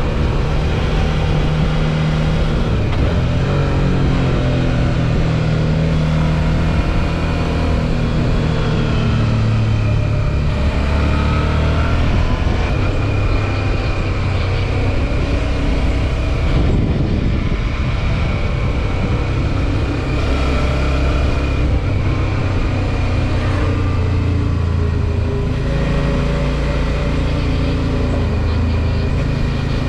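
Suzuki V-Strom 650 XT's 645 cc V-twin engine running while riding, its pitch rising and falling as the bike speeds up and slows, over a steady rushing noise.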